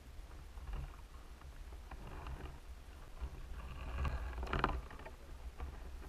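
Water moving around an underwater camera, heard muffled through its housing: a steady low rumble with a few faint clicks, and a louder swirl of water about four to five seconds in.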